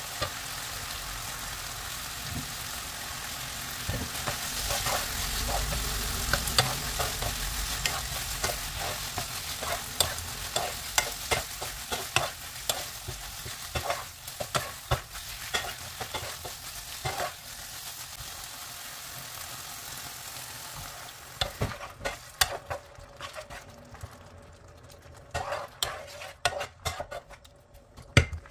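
Diced chicken breast sizzling in oil in a nonstick frying pan while a plastic spatula stirs and scrapes it, with many quick knocks of the spatula on the pan. About three-quarters of the way through the sizzle dies down sharply as liquid goes into the pan, leaving only spatula knocks and stirring.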